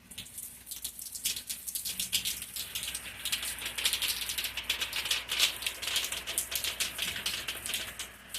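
Rain pattering hard on a nearby surface during a thunderstorm, a dense rush of ticking drops that picks up about a second in, is heaviest through the middle and eases near the end.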